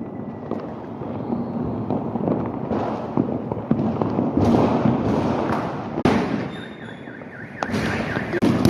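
Firecrackers going off in a dense, continuous crackle of small pops, with a few sharper bangs in the second half.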